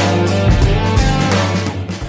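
Background music with guitar and drums, beginning to fade out near the end.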